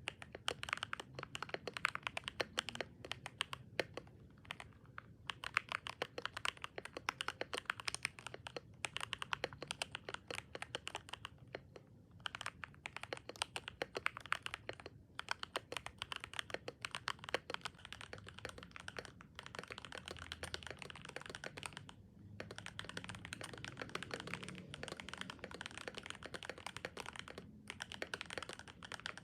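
Royal Kludge RK100 mechanical keyboard with Gateron Pro Silver linear switches, tape-modded with foam in the case, being typed on quickly and continuously. The run of key clicks breaks off briefly every few seconds.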